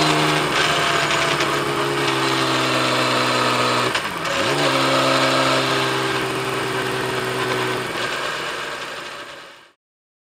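Kawasaki Z1300's six-cylinder engine running at steady revs under way, heard from on board the motorcycle. About four seconds in the engine speed dips briefly and recovers, and the sound fades out near the end.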